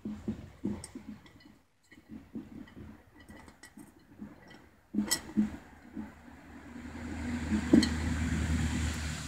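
Small stones clinking and knocking against each other and the glass of a one-gallon jar as a hand arranges them on its bottom, in short separate knocks. A louder, rougher scraping noise builds over the last few seconds.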